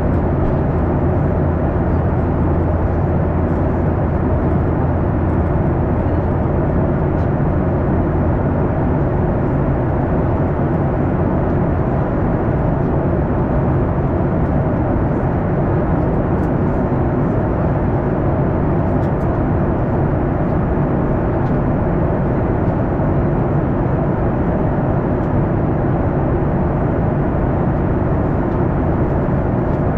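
Steady cabin noise of a Boeing 737-800 in motion: an even rumble from its CFM56-7B turbofan engines and airframe, heard from a forward window seat, with no change in pitch or level.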